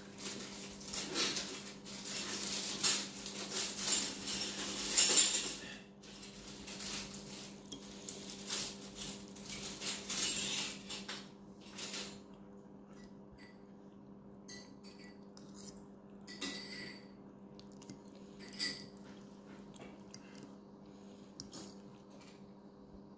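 Metal fork scraping and clinking against a ceramic plate while cutting into soft baked pasta. The clatter is busiest for the first six seconds, then thins to scattered light taps.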